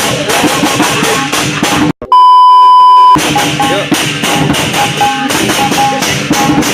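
Background music with a steady beat, cut about two seconds in by a loud, steady one-second beep tone, after which the music picks up again.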